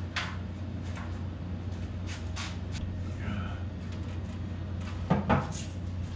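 Scattered wooden knocks and clunks from work on the roof rafters, the loudest about five seconds in, over a steady low hum.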